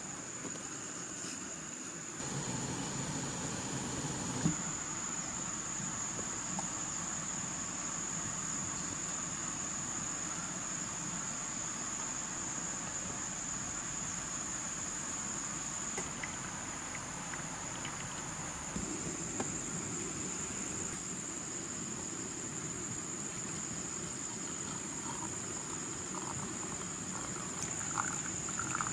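Crickets trilling in a continuous, steady high chorus over an even background rush.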